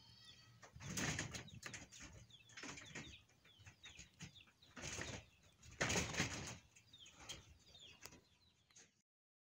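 Rabbits scuffling on grass inside a wire-floored pasture pen: irregular bursts of rustling and soft thuds, loudest about a second in and again around six seconds in. The two rabbits have never met and are circling and chasing each other, which is normal when rabbits are first introduced. The sound cuts off near the end.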